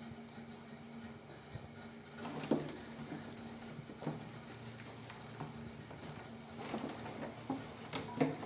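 Kittens playing: scattered soft knocks and scuffs, a few louder ones about two and a half, four and eight seconds in, over a faint steady hum.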